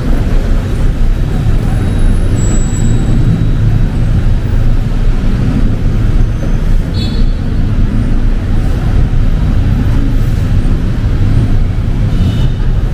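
Heavy city road traffic: car and bus engines running in a steady low rumble, with two brief high squeaks, about seven seconds in and near the end.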